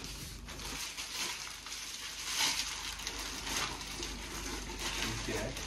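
Packing paper and wrapping rustling and crinkling as it is handled and crumpled, louder in a couple of swells in the middle.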